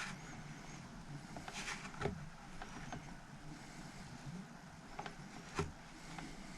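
Faint handling noises of a small fitting being threaded in by hand: a few scattered light clicks and knocks, the loudest near the end, over quiet room noise.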